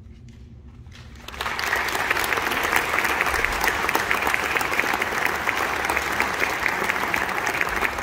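Audience applauding: a few scattered claps, then full applause breaking out about a second and a half in and holding steady.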